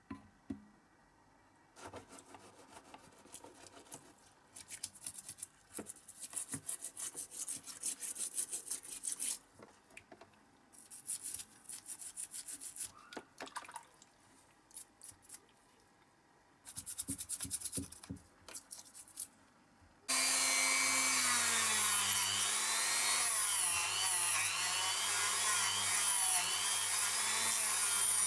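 Paint being scraped off a diecast toy car body with a stick, in bursts of short scraping strokes with pauses. About twenty seconds in, a rotary tool with a brass wire brush switches on and runs steadily against the metal body, much louder, its pitch dipping and rising as it is pressed on.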